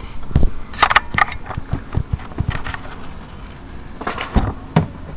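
Irregular clicks, knocks and rustles of hands working a car's tail-light bulb holder and bulb, with a cluster about a second in and another about four seconds in.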